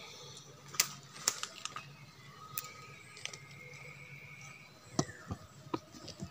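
Small green fruits being plucked by hand from clusters on a tree trunk: a series of sharp snaps and clicks, about eight of them, as the stems break and the fruit is handled.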